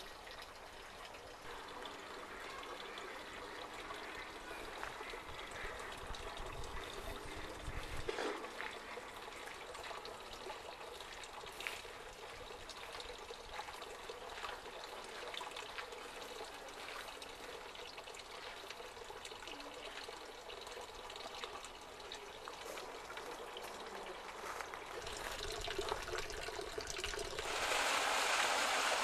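Water trickling and running, with a louder, fuller rush of water setting in near the end.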